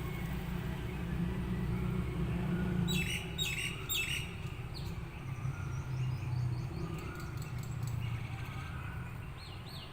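Birds chirping, with three sharp, quick, falling calls about three seconds in and fainter calls later, over a steady low rumble.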